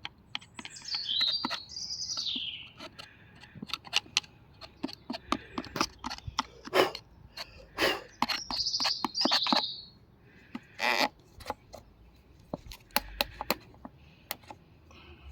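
A bird calls twice with high sweeping chirps, over scattered clicks and knocks from hands cleaning and handling the chainsaw's chain-tensioner parts.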